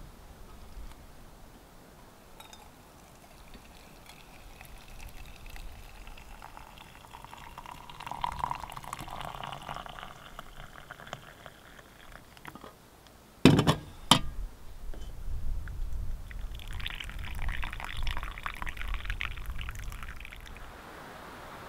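Coffee poured from a pot through a pour-over filter into a metal camp mug, trickling in two spells. Between the two pours, about two-thirds of the way in, come two sharp knocks close together, the loudest sounds here.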